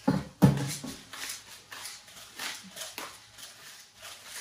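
A short voice-like outburst at the start, then a hand-twisted pepper mill grinding peppercorns in a run of rasping twists, about two a second.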